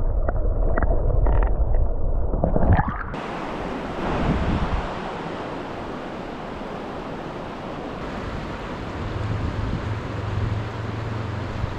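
Rushing river water, a steady even hiss, after a muffled low rumble with a few knocks in the first three seconds or so.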